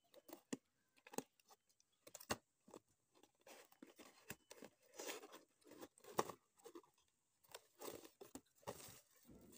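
Cardboard box being handled and opened by hand: scattered short rustles, scrapes and taps as the flap is pulled open and the inner packaging slid out.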